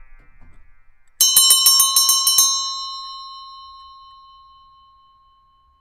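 A bell struck in a quick trill of about eight strikes in just over a second, then ringing out and slowly fading away.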